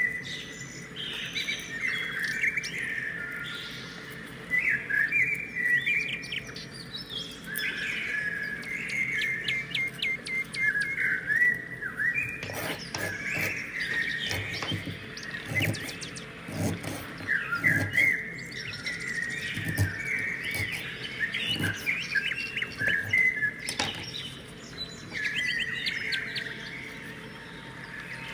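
Small birds chirping and singing continuously, many short chirps and trills. Soft knocks come in the middle stretch, about twelve to twenty-two seconds in.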